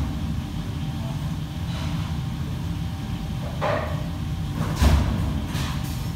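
Commercial kitchen at work: a steady low rumble, with short clatters of utensils and cookware, the loudest about four and five seconds in.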